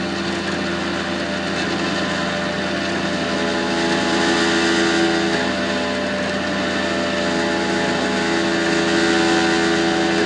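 A tow truck's engine runs steadily while its winch cable drags a Jeep stuck in mud. The note rises and gets louder twice, about four seconds in and near the end, as the load comes on.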